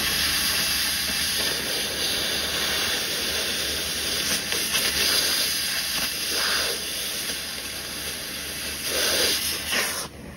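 Cutting torch hissing steadily as it cuts through metal, swelling a couple of times and then cutting off abruptly near the end.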